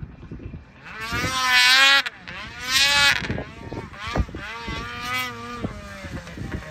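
Snowmobile engine revving hard in two loud surges as the sled ploughs through powder, then running at a lower, steadier pitch.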